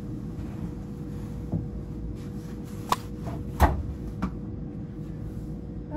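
Bedsheets being handled and loaded into a front-loading washing machine, with four sharp knocks from the machine and its door, the loudest just past the middle, over a steady low hum.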